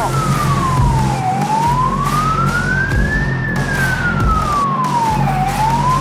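A wailing siren tone, its pitch sliding slowly down and up about two seconds each way, over a steady low hum.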